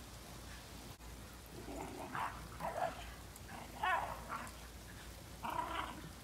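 Shiba Inu dogs vocalizing as they play-fight: several short yelping, growly outbursts, the loudest about four seconds in.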